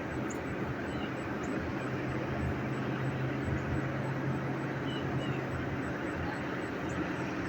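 Steady low drone of a distant engine, with its hum growing stronger for a few seconds in the middle.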